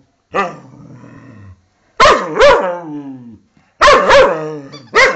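A pet dog barking in short pairs, with a low growl after the first bark, worked up in play over a squeaky toy.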